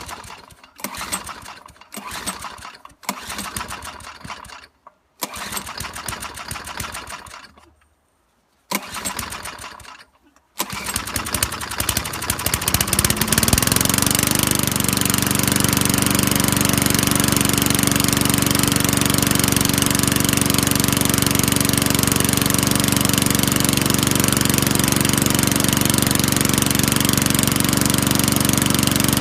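Early-1980s lawnmower's 3.5 hp Tecumseh engine being cold-started with several pulls of its recoil starter; the primer bulb does not work. About ten seconds in it catches, revs up over a few seconds and settles into a steady run.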